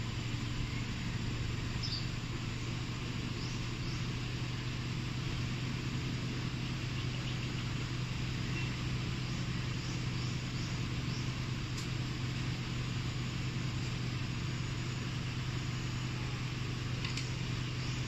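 Steady low hum of a car engine idling, with a few faint bird chirps.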